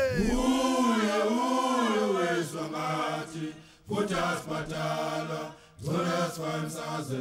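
Male vocal chanting in long, slowly gliding held phrases, broken by short pauses about four and six seconds in.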